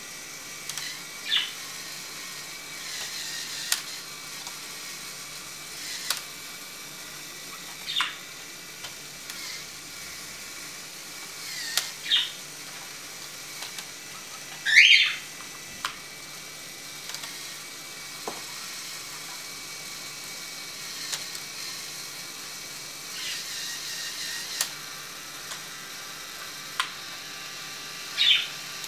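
Lego Technic 8070 Supercar's Power Functions electric motor whirring as it drives the car's opening functions, with several short rising whines, the loudest about halfway through. Sharp plastic clicks come between them as the gear selector is moved.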